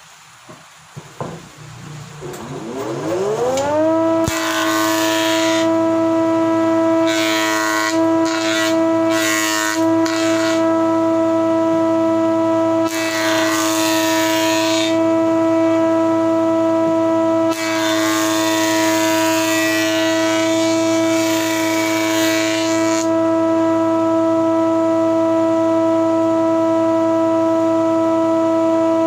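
A homemade table planer's electric motor and cutterhead spin up with a rising whine over the first few seconds, then run at a steady whine. A wooden board fed across the cutterhead is planed in several spells of noisy cutting between about 4 and 23 seconds in, after which the machine runs on freely.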